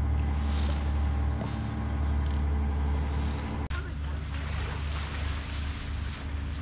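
A boat engine idling steadily with a deep hum. About three and a half seconds in the sound changes abruptly to wind on the microphone and small waves lapping at the shore.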